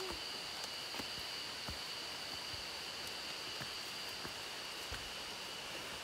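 Steady high-pitched drone of forest insects, with a few faint footfalls and rustling on a leafy dirt trail.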